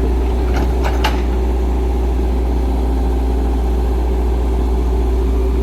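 Excavator's diesel engine running steadily, with a couple of short clicks about half a second and a second in.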